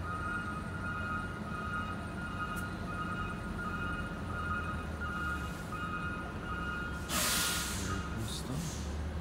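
Steady low engine hum of a stationary car with a steady high-pitched tone over it, heard from inside the cabin; a short loud rush of noise comes about seven seconds in, and the tone stops soon after.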